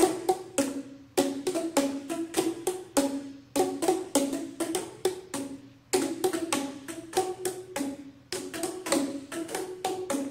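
A group striking sound sticks, hollow tuned plastic tubes, several times a second in a loose, uneven rhythm. Each hit is a short hollow pitched note, and the notes overlap. There are a few brief pauses.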